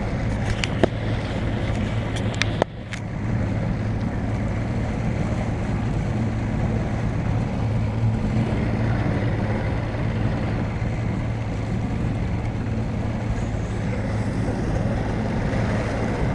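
Fishing boat's outboard motor running steadily under way, a low, even drone with rushing noise. A few sharp knocks sound in the first three seconds.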